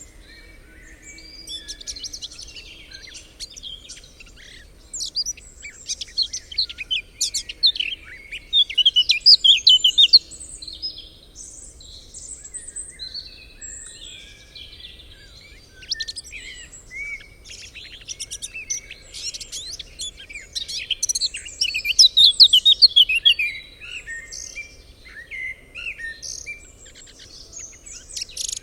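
Several songbirds calling and singing at once, a busy chorus of chirps and trills. Two louder runs of rapid notes stand out, one about a third of the way through and one about three-quarters of the way through, over a faint low background hush.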